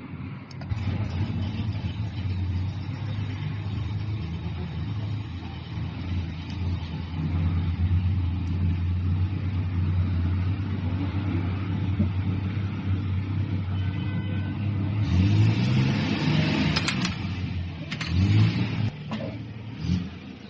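Diesel engine running steadily, then revved up and back down twice near the end.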